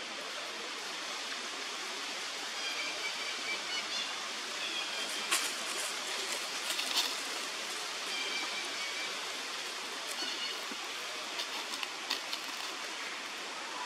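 Steady outdoor hiss, with short high chirps now and then and a few sharp clicks, about five seconds in, near seven seconds and near twelve seconds.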